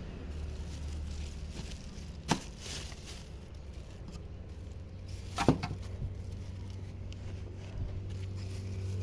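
Two short, sharp knocks about three seconds apart over a steady low hum.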